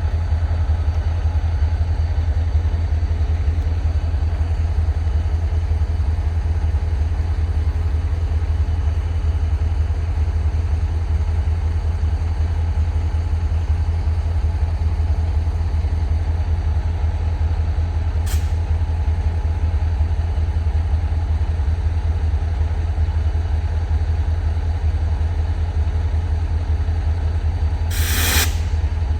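EMD SD40-2 diesel-electric locomotive's 16-cylinder two-stroke engine idling with a steady low drone. A short hiss of released air sounds near the end.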